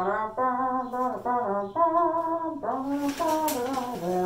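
Intro tune of held notes stepping up and down, brassy in tone, about a dozen notes in quick succession.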